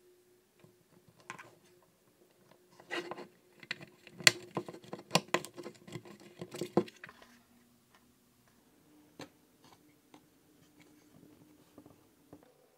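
Plastic clicks and knocks as a rocker switch and a wire connector are pushed into the panel of a 3D-printed plastic housing, clustered between about one and seven seconds in with the sharpest snap near four seconds, then only faint handling clicks.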